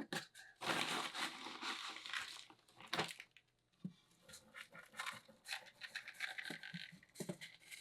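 Irregular rustling, crinkling and scraping with a few sharp clicks, from hands handling materials such as a plastic bag while working on an aquarium.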